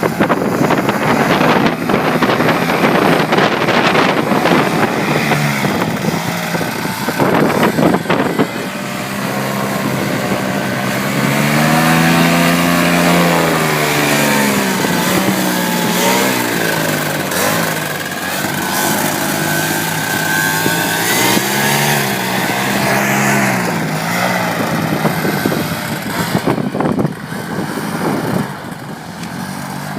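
Paramotor engine and propeller running, its pitch rising and falling as the throttle changes. Gusty wind buffets the microphone in the first several seconds and again near the end.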